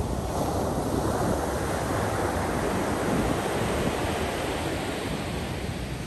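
Ocean surf washing onto a beach: a wave's rush swells and then slowly fades, with wind buffeting the microphone underneath.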